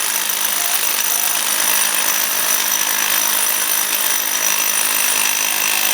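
Jackhammer running continuously, chiselling into a concrete block to crack it apart.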